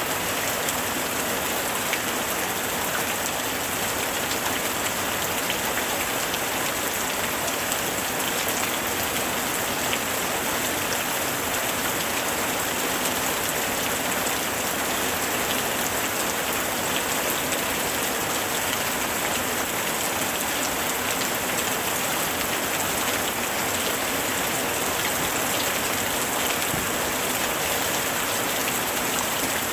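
Steady rain falling, with many fine drops pattering on a surface; even and unchanging throughout.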